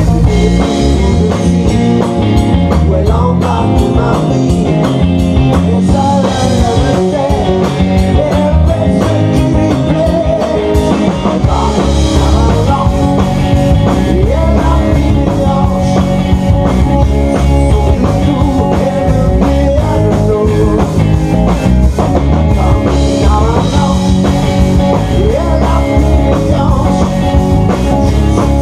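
Rock band playing live and loud on electric guitar, electric bass and drum kit.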